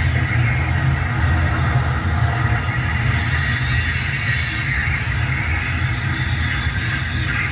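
Train sound effect laid over a model train: a steady low rumble of a running freight train with an even hiss of rail noise.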